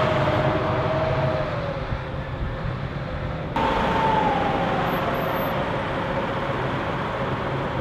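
Stryker eight-wheeled armoured vehicles running in a slow convoy, diesel engine noise with a steady whine that slides down in pitch. About three and a half seconds in the sound changes abruptly, and a higher whine starts and falls again.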